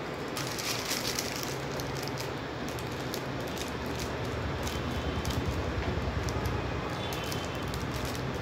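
Steady low hum and hiss with scattered light clicks, the low rumble swelling in the middle.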